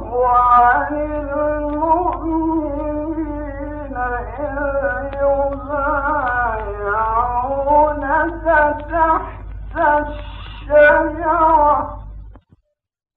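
Old archival recording of a male Quran reciter chanting in long, ornamented, wavering held notes, over a steady low hum from the old recording. The voice cuts off abruptly near the end.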